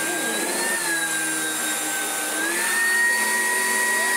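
Oreck XL upright vacuum cleaner running just after being switched on, with a steady high motor whine whose pitch steps up a little about two and a half seconds in.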